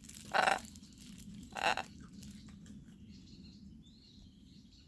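Two short, harsh parrot squawks about a second apart, followed by faint high chirps.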